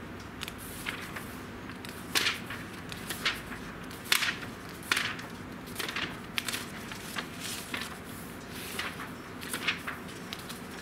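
Pages of a large book being turned by hand, one after another: a quick, irregular string of short papery swishes and rustles, over a dozen in all.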